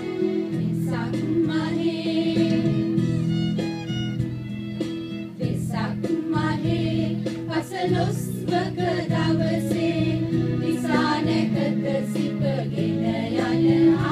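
A group of women singing together into microphones, with instrumental backing under the voices.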